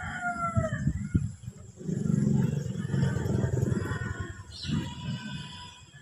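A rooster's crow trailing off in the first second, followed by a few seconds of low, muffled noise with a few knocks, and a short higher bird call near the end.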